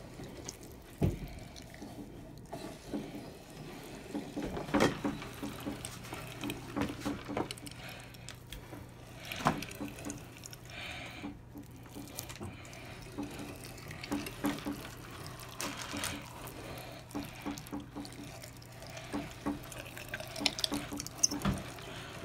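Meat grinder working raw chicken breast: wet squishing of the meat being pushed into the feed tray and forced through the grinder, over a faint steady hum, with a few sharp knocks.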